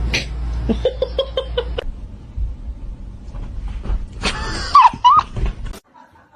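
A person laughing in a quick run of short notes, over a low rumble. About four seconds in comes a louder, high, wavering cry.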